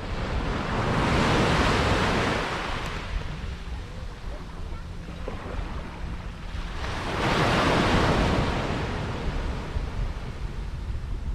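Sea waves breaking and washing on a beach, two waves swelling and falling away about six seconds apart, with wind rumbling on the microphone.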